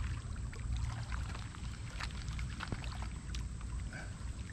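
Low, steady rumble of wind buffeting the microphone, with a few scattered light ticks.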